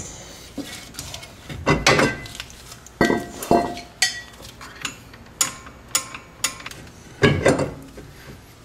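Metal clanks, knocks and clinks as a rear brake drum is pulled off the hub, set down and slid back on over new brake shoes while the shoe adjustment is being set. About ten separate knocks and clicks, some ringing briefly, the loudest a pair of clanks just past seven seconds in.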